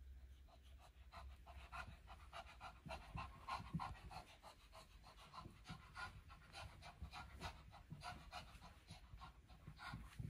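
Shih Tzu panting: a fast, even run of short, faint breaths, about four a second.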